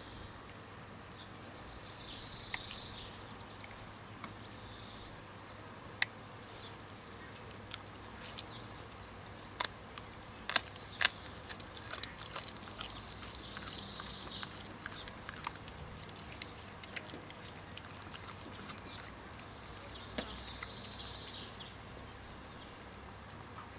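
Young Australian kelpie chewing and gnawing a lamb sparerib on a metal crate tray: scattered sharp clicks and crunches, thickest in the middle, with a few louder cracks.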